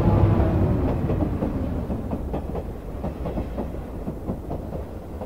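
Train sound effect: a heavy rumble, then the regular clickety-clack of wheels over rail joints, fading steadily.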